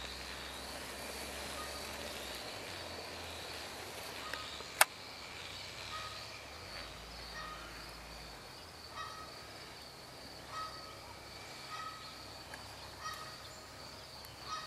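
Outdoor ambience: a steady high-pitched insect drone, with short bird calls repeating every second or so from about four seconds in, and one sharp click about five seconds in.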